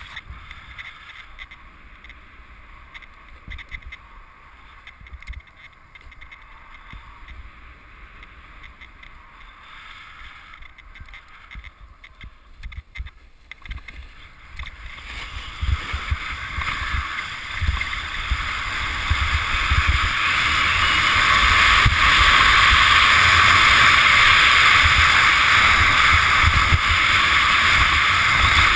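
Snowboard sliding over snow, heard from a helmet-mounted camera: a quiet hiss at first, then from about halfway a steadily louder rushing scrape with low, uneven wind buffeting as the board picks up speed.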